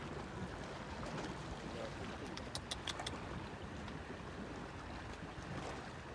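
Steady wash of small waves lapping against a concrete seawall, with a short run of sharp clicks about two and a half seconds in.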